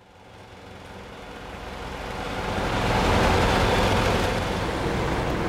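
Dive boat underway: its engine running with a steady low rumble under a wash of sea and wind noise, fading in over the first few seconds.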